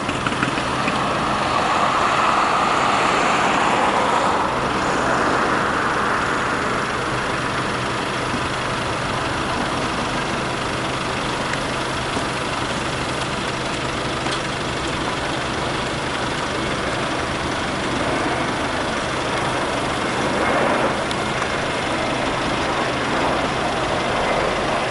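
Airbus A320-216 on final approach with its landing gear down, its CFM56 jet engines making a steady rushing roar.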